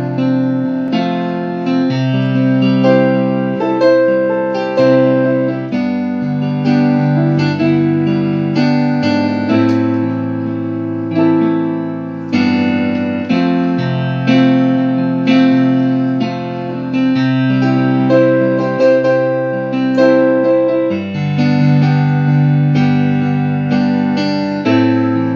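Electronic keyboard playing slow, sustained chords over held bass notes, the harmony changing about every two seconds.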